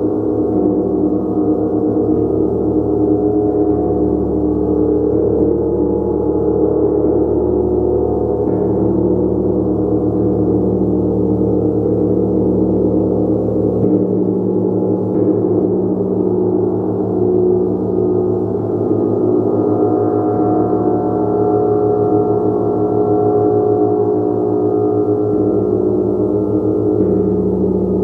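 A large gong played continuously in a sustained wash, many overlapping tones shimmering and swelling, with the low tones shifting every few seconds as it is struck or rubbed again.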